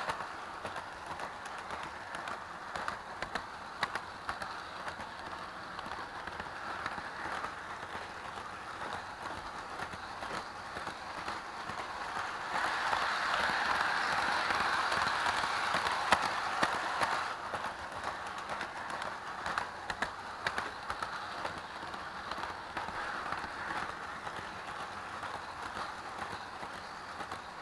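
Toy train running around its track, heard up close from a car riding on it: a steady whirring rattle of the small motor and wheels with scattered clicks, louder for a few seconds about halfway through.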